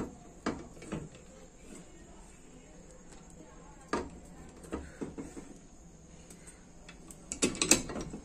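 Metal clinks and knocks as the input and output gear shafts of a Super Splendor motorcycle engine are seated into the crankcase: a few scattered sharp knocks, then a quick flurry of clinks near the end.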